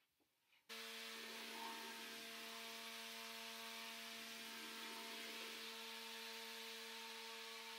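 Fan cart's battery-powered fan running: a steady whir with a few fixed humming tones, starting suddenly about a second in and holding even throughout.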